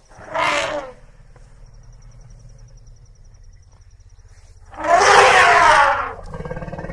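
Elephant calling twice, a short call about half a second in and a longer, louder trumpet-like call about five seconds in, with a low steady rumble of background between.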